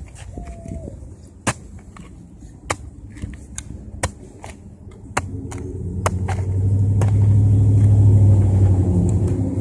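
Sharp chops and knocks of a long-handled digging tool working into soil at a metal detector target, with a short steady beep from the detector near the start. From about five seconds in, the low rumble of a passing vehicle swells and becomes the loudest sound near the end.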